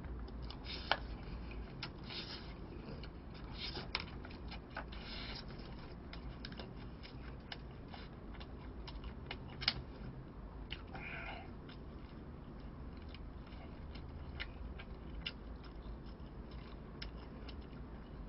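Faint eating sounds: scattered light clicks of a plastic spoon against a plastic takeout tray, with some chewing.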